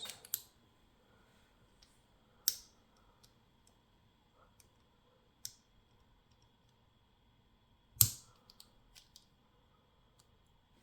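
A few scattered sharp metallic clicks and taps, the loudest about eight seconds in, from circlip pliers working at the C-clip on the back of a padlock's core.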